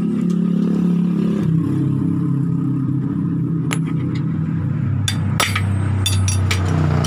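An engine running steadily nearby, its low hum shifting in pitch about a second and a half in and again near five seconds. Over it, a hammer strikes a steel drift to knock out a worn, loose swingarm pivot bushing: a single blow near the middle, then a quick run of blows in the second half.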